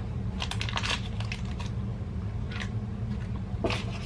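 A few short scrapes and clicks of butter being put into an air fryer basket, over a steady low hum.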